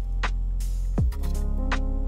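Background music: an electronic track with a steady deep bass, kick drum beats and short ticks.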